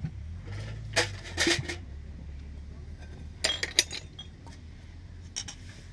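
Dishes and glassware clinking as they are handled: a few separate sharp clinks and knocks about a second in, a cluster around three and a half seconds in, and one more near the end.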